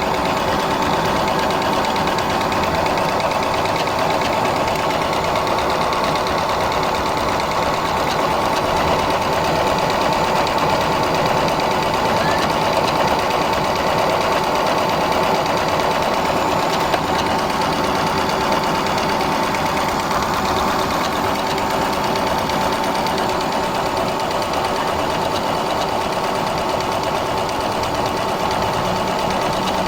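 Juki Allowne computerized sewing machine running continuously, its needle stitching a decorative stitch pattern in a fast, steady, even rhythm.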